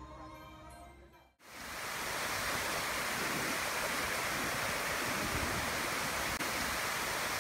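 Small forest waterfall cascading over rocks: a steady rush of falling water that starts abruptly about a second and a half in, once fading music has died away.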